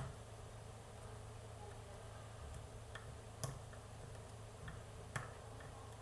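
Small metallic clicks of a lock pick working the pins of a Pollux 7 pin-tumbler lock under a tension bar, a few sharp ticks spaced irregularly, the loudest about three and a half and five seconds in, over a low steady hum.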